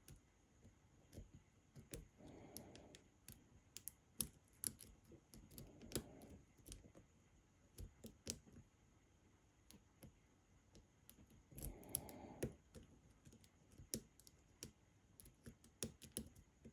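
Faint, irregular metallic clicks of a lock pick and tension wrench working the pin stack of a pin-tumbler lock, as pins are lifted and set.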